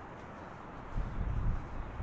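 Wind buffeting the phone's microphone: an irregular low rumble that starts suddenly about a second in, over a steady outdoor hiss.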